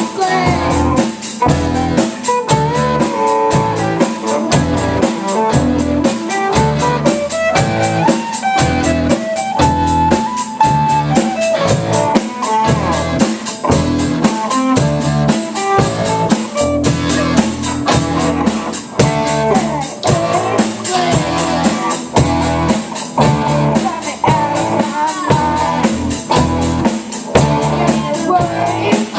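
Rock band playing live: electric guitar over bass and drum kit, with a guitar playing a moving lead line and no vocals.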